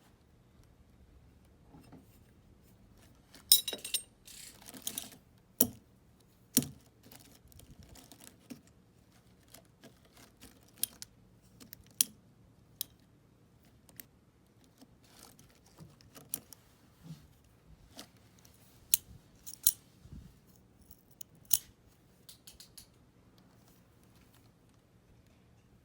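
Small metal hand tools from a motorcycle's onboard tool kit clinking and clattering as they are handled and packed, in scattered irregular clicks and clanks, the loudest about three and a half seconds in.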